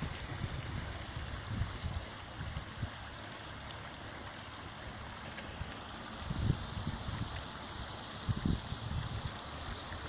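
Water flowing by itself out of the top of a borewell casing and splashing onto the rocks around it, a steady pouring rush: the well is flowing artesian, with no pump. A few low bumps sound now and then under the water.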